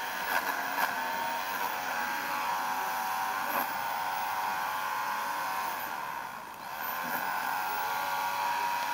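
Electric power tool motor running steadily with an even whine, easing off briefly about six and a half seconds in and then running on.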